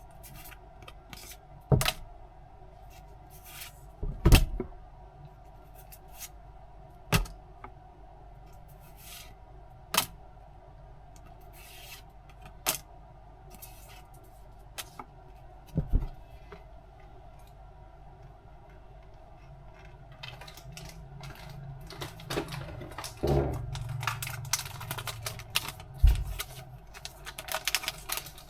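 Handling noises from unboxing a Pokémon tin and its contents: scattered clicks and taps. From about two-thirds of the way in comes a denser run of rustling and scraping.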